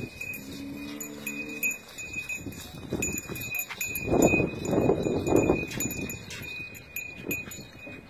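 A bull lowing once near the start, a low moo lasting about a second and a half. Small bells jingle on and off throughout, with bursts of scuffing from hooves and feet on dirt in the middle.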